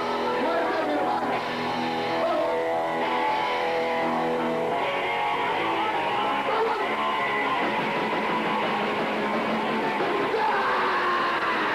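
Live hardcore punk band playing loud, with distorted electric guitar chords; the chord pattern changes about five seconds in and again near the end.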